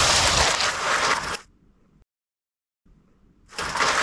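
Demolition crash: a rushing, crumbling noise over a low rumble that fades and stops about a second and a half in. After a short silence the same noise starts again near the end, so the clip is repeating.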